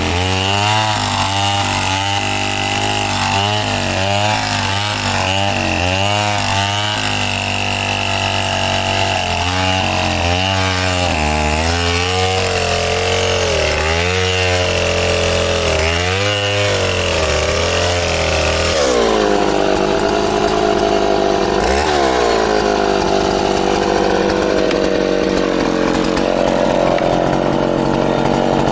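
Chainsaw engine revving up and dropping back about once a second, then held at a steadier, higher speed for the last third.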